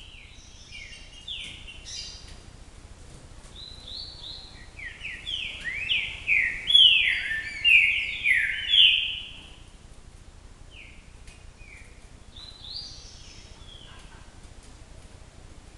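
A songbird singing: quick down-slurred whistled notes that build into a loud, dense phrase about five to nine seconds in, followed by a few scattered softer notes.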